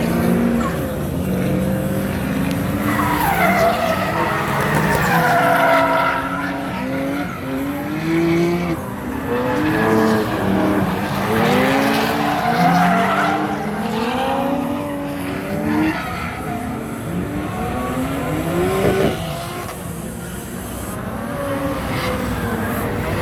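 Drift cars sliding by, their engines revving up and down at high rpm while the tyres screech through the slides. The screeching swells twice, a few seconds in and again around the middle.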